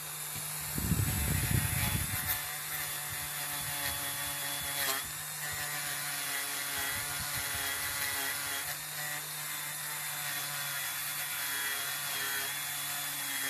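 Small cordless rotary tool running steadily with a wire brush wheel, scrubbing paint and grime off a small toy figure held against it. The brush bites harder about a second in, giving a louder, rougher stretch over the motor's whine.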